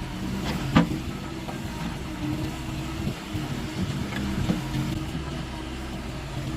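Diesel engine of a piece of heavy digging equipment running steadily, with a sharp knock about a second in and a few fainter clicks later.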